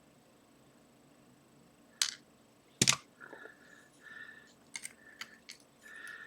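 Sharp metallic clicks and taps from a pin-tumbler lock being taken apart by hand, the loudest a double click about three seconds in, with a few short faint squeaky scrapes between them.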